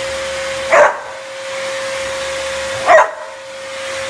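An Airedale terrier barks twice at a running Dyson vacuum cleaner, once about a second in and again near three seconds. Under the barks the vacuum's motor runs with a steady whine.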